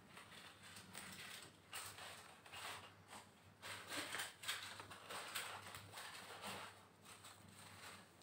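Faint, irregular rustling and light knocks from someone moving about and handling small things, over a low steady room hum.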